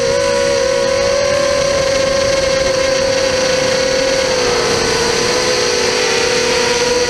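Electric motor and propeller whine of a small FPV model aircraft, picked up by the GoPro on board: a steady high hum over rushing wind noise, dropping slightly in pitch about two thirds of the way in.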